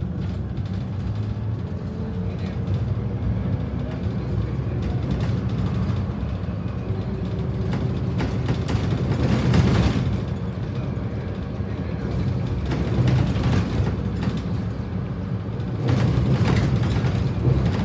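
Volvo B7RLE bus's rear-mounted six-cylinder diesel engine running while the bus drives along, heard from inside the cabin together with road noise. The sound grows louder for a moment about halfway through and again near the end.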